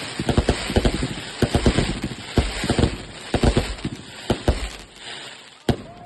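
Small consumer fireworks going off: a rapid, irregular string of bangs and crackling over a hiss, thinning out about five seconds in, with one last sharp bang near the end.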